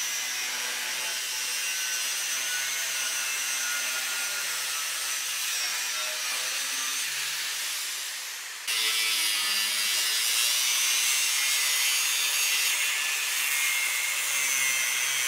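Angle grinder with a thin cut-off wheel cutting through steel leaf spring: a steady high whine over a grinding hiss. The sound breaks off abruptly about nine seconds in and carries on slightly louder.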